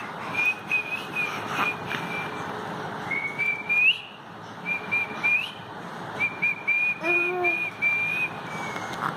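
A person whistling a string of short, high notes, several ending with a quick upward slide. About seven seconds in, a baby gives a brief coo.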